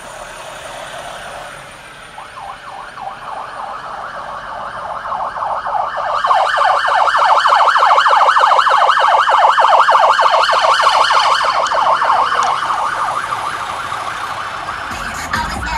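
FPV racing quadcopters' motors whining, their pitch wavering rapidly as the pilots work the throttle. The whine swells as the quads come close, is loudest for several seconds in the middle, then fades.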